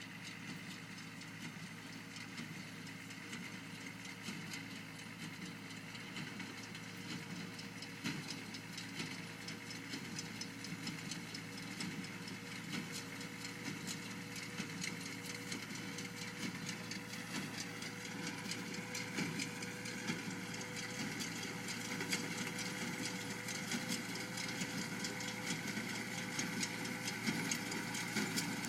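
John Deere 24T square baler working behind its tractor. The engine runs steadily under a rapid, rhythmic clacking from the baler's mechanism, and the sound grows gradually louder as the rig comes closer.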